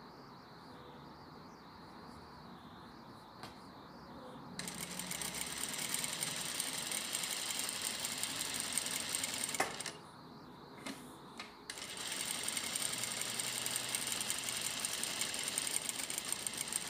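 Industrial lockstitch sewing machine stitching a seam through fabric. It starts about four and a half seconds in and runs for about five seconds. It stops for about two seconds with a couple of small clicks, then runs again about twelve seconds in.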